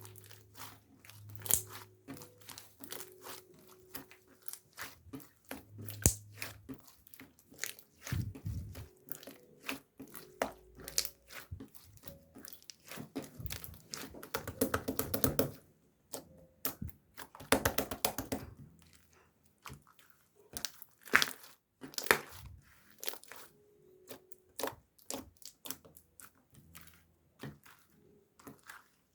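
Irregular crinkling and rustling with many small clicks and taps, thicker in a couple of stretches.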